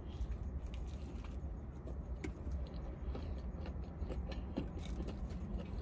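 A person biting into and chewing a chicken sandwich: soft, scattered mouth clicks over a low steady rumble inside a car.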